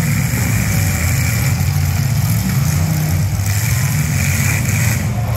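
V8 engines of several demolition derby cars running loud, their pitch wavering a little as they rev and idle.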